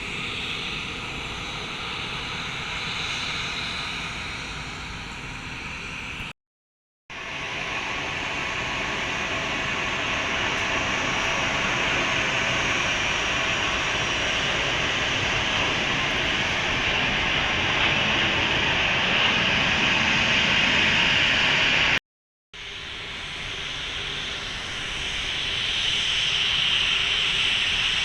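Jet airliner engines on landing approach: a steady rushing roar that slowly grows louder, broken twice by abrupt cuts to silence.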